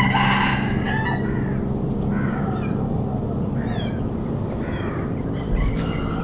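A kitten meowing: a series of short calls, roughly a second apart, over a steady low hum.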